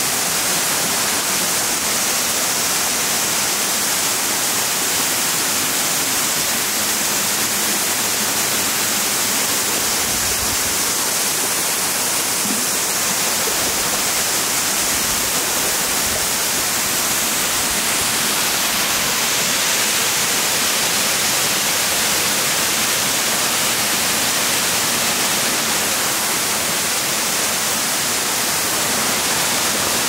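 Steady, unbroken rush of a tall waterfall pouring down a cliff into a rocky pool, a dense hiss of falling water that stays level throughout.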